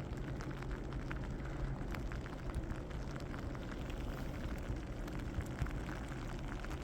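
Graupel falling, the small ice pellets ticking irregularly on surfaces over a steady low noise.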